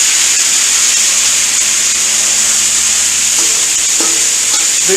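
Marinated fajita vegetables sizzling on an oiled cast-iron gas griddle, a loud, steady hiss just after they hit the hot surface.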